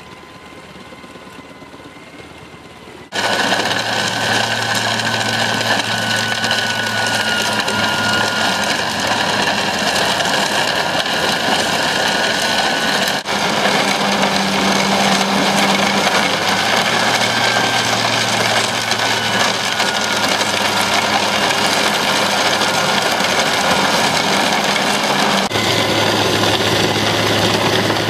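Kesla truck-mounted wood chipper running. A quieter engine hum with a steady whine comes first; about three seconds in, the loud, dense grinding of wood being chipped sets in over a steady engine drone and goes on throughout.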